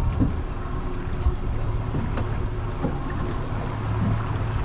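Boat's outboard motor running steadily as a low drone, under wind and water noise, with a few light clicks.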